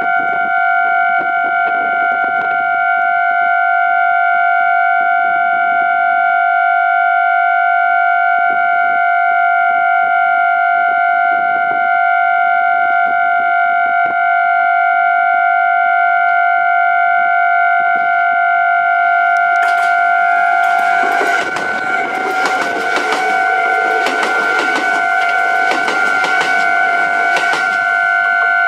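Level-crossing warning alarm sounding abnormally, as one continuous steady tone with no ringing rhythm, which the uploader puts down to damage left by a snapped overhead wire. From about 20 s in, a Kintetsu 5200 series electric train passes over the crossing, its wheels clattering on the track, with the alarm tone going on over it.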